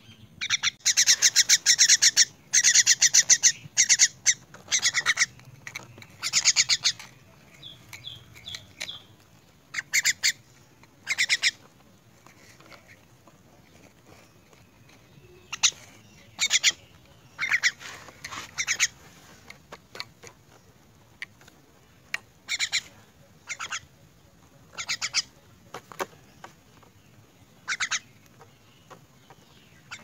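Young myna giving harsh, squawking begging calls while being hand-fed insects. A close run of loud calls fills the first seven seconds, then shorter calls come every second or two.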